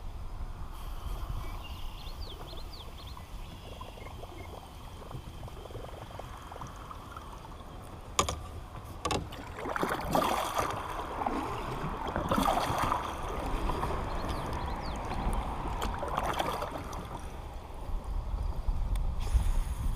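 Wind rumbling on the microphone over water sounds around a small fishing boat, with two sharp clicks a little before the middle and a busier stretch of splashing noise in the second half.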